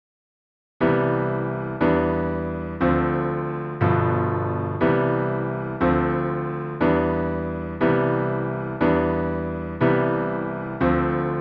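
Piano-toned keyboard music: after a moment of silence, a block chord is struck about once a second, each left to ring and fade before the next. The chords are the school chime's notes turned into a chord progression.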